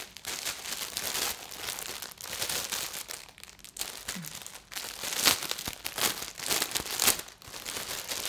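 Noisy thin clear plastic packaging crinkling as it is handled and pulled off a folded fabric umbrella diffuser, in uneven rustles that are loudest about five and seven seconds in.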